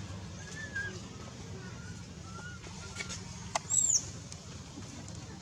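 Animal sounds over a steady background hiss: a few faint short chirps, then a click and one short, high-pitched call falling in pitch, about four seconds in.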